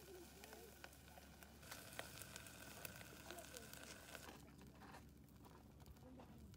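Faint crackling of a small wood fire burning in a camp stove under a grill of meat skewers: scattered sharp clicks and ticks, thickest between about two and four seconds in.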